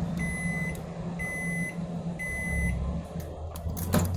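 Samsung GE83HDT microwave oven beeping three times at the end of its cycle, even half-second tones about a second apart, over the low hum of the oven running. A sharp click follows near the end. The cycle has heated the wet cloth inside, showing the oven heats again after its magnetron and ground fuse were replaced.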